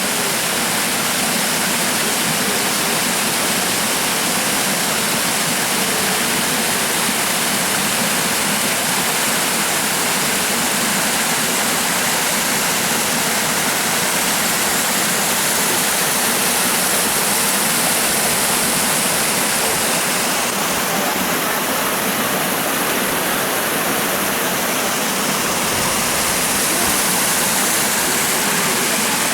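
Spruce Flats Falls, a mountain waterfall, rushing loudly and steadily close to the microphone.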